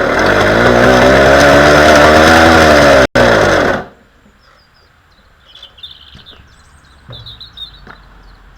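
1960 NSU Quickly S moped's small two-stroke single-cylinder engine running briefly on a start-up attempt, its pitch rising and then sinking before it cuts out about four seconds in. Birds chirp faintly afterwards.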